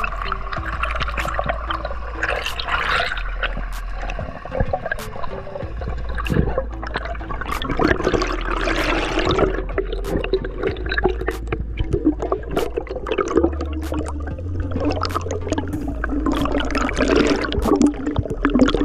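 Water rushing and bubbling around an underwater camera during a dive, swelling and fading several times, with many sharp clicks and crackles throughout.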